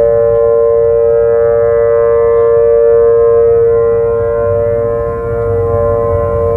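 A loud, steady, sustained tone with many overtones, holding one pitch without rising or falling.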